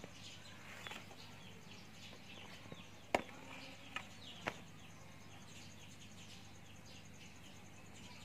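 Birds chirping in the background, many short high chirps, with three sharp clicks or taps about three, four and four and a half seconds in.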